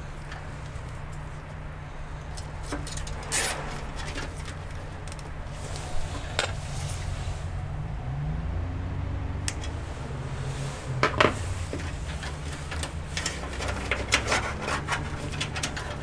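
Gloved hands handling and routing cables behind a PC's motherboard tray: rustling with scattered light clicks and knocks of cables and plastic against the steel case. There are sharp clicks about three and a half and six seconds in, a louder pair near eleven seconds, and a quicker run of clicks toward the end, over a steady low hum.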